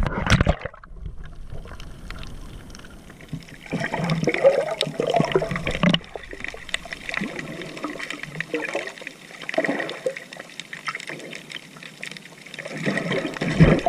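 Sea water sloshing and splashing in irregular surges, loudest in a few swells a few seconds apart.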